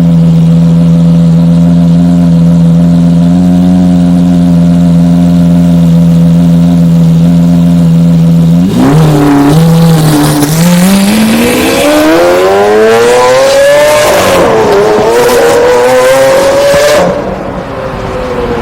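Lamborghini Aventador's V12 engine running at a steady low speed, then, about nine seconds in, accelerating hard with its pitch climbing steeply, dipping briefly at a gear change and climbing again before the throttle is lifted near the end, with exhaust pops as it backs off.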